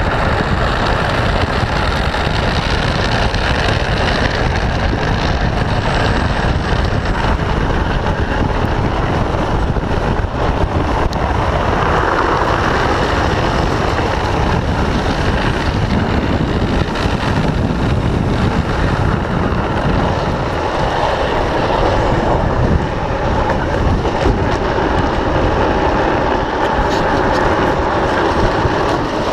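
Drift trike rolling and sliding on asphalt, the PVC sleeves on its rear wheels scraping steadily against the road, with wind rushing over the microphone.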